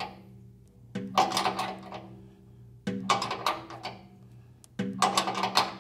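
Wrench tightening the nut on a steel support foot of a Hammer A3-41 jointer-planer: three bursts of metallic clicking and clinking about two seconds apart, one per stroke, each with a brief ringing tone from the metal.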